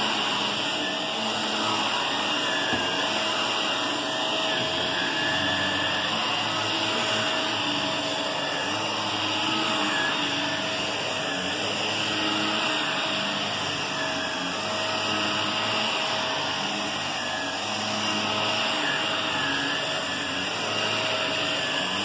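Shark upright vacuum cleaner running steadily over carpet, a continuous whir with a steady hum. Its loudness swells and dips slightly as it is pushed back and forth.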